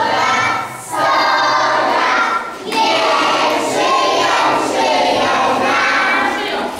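A group of young children singing a song together with adults, as a loose chorus.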